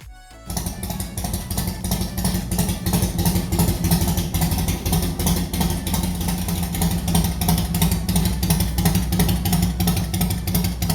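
Motorcycle engine running at a steady pitch under way, cutting in abruptly about half a second in.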